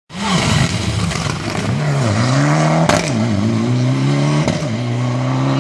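Rally car engine revving hard through a tight hairpin and accelerating away. Its pitch climbs and drops back several times as it changes gear, with two sharp cracks about three and four and a half seconds in.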